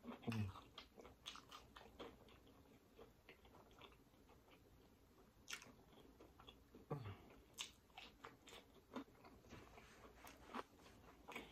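Soft chewing of crispy breaded fried tilapia, with scattered crunches and mouth clicks.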